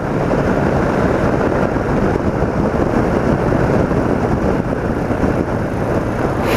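BMW R80RT motorcycle on the move: steady wind and road noise over its flat-twin engine, heard through a bike-mounted camera microphone. A brief click comes right at the end.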